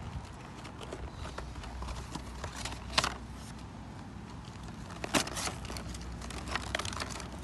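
Cardboard toy box with a plastic window being torn open by hand: scattered rips and crackles, with two sharper snaps about three and five seconds in.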